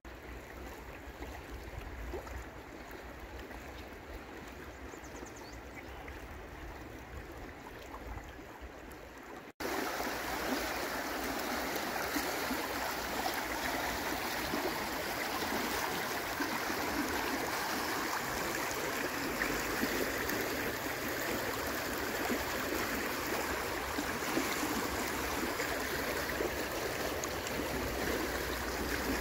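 River current rushing steadily over a shallow riffle. About ten seconds in the sound cuts to a louder, hissier rush of water.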